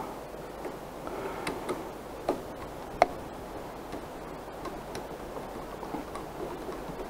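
Light metallic clicks and ticks of a screw being started and turned with a hand screwdriver into a stepper motor's metal mounting bracket, with two sharper knocks about two and three seconds in.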